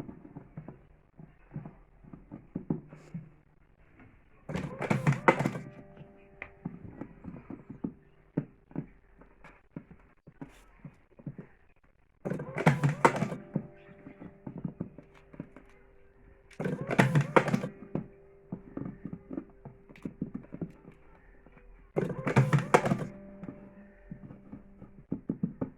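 Electric slim cigarette-rolling machine's motor running in four short runs of about a second each, with small clicks and knocks of handling in between.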